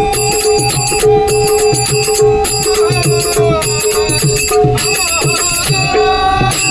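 Instrumental passage of a bhajan between sung lines: sustained held notes over a steady drum rhythm, with jingling hand percussion keeping time.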